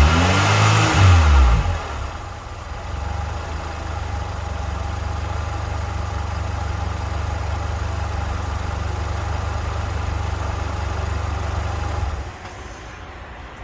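Honda Civic four-cylinder engine running after its conversion to multi-point fuel injection: revved up and down for the first couple of seconds, then settling to a steady idle, and the engine sound stops near the end.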